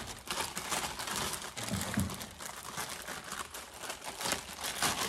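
Clear plastic bags crinkling and rustling as they are handled and pulled off parts during unwrapping, an irregular crackle throughout.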